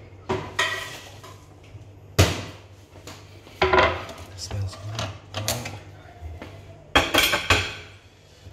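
Kitchen clatter: a wooden chopping board and a knife being set down and handled on a stone benchtop, several separate knocks and clanks, the sharpest about two seconds in and a last burst of clatter about seven seconds in, over a steady low hum.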